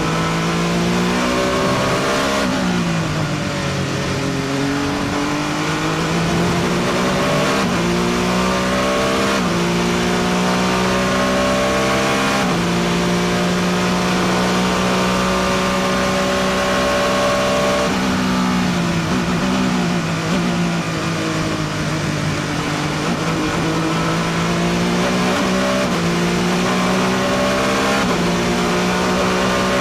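The SMP Racing BR1 LMP1 prototype's AER twin-turbo V6 at racing speed, heard from inside the cockpit. The engine note climbs through the gears with sudden drops at each upshift, and falls through quick downshifts for corners early on and again about two-thirds of the way through.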